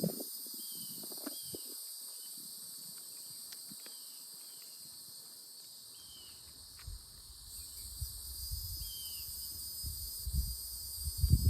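Steady high-pitched chorus of insects, with wind buffeting the microphone in low gusts that grow stronger in the last few seconds.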